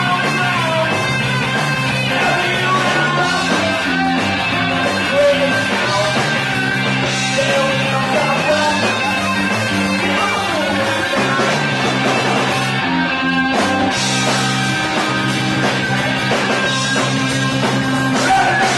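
Live rock band playing: electric guitars, bass guitar and drums, with amplified harmonica, steady and loud throughout.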